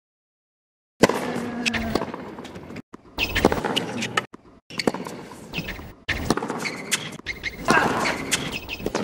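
Tennis rally on a hard court: rackets striking the ball in sharp cracks every second or so, sneakers squeaking on the court surface, and crowd noise underneath. The first second is silent.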